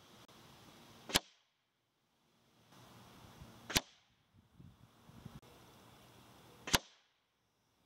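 Three shots from a .257 Texan big-bore air rifle, each a single sharp crack: about a second in, near the middle, and near the end.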